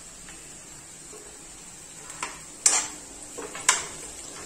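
Steel spoon stirring boiled potato cubes in a non-stick kadhai: quiet for the first two seconds, then about four knocks and scrapes of the spoon against the pan, two of them sharp.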